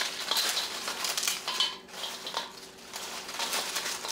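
Doritos tortilla chips crushed by hand in a stainless steel mixing bowl, giving a run of irregular dry crunching and crackling as the chips break and rub against the metal, with a couple of brief lulls midway.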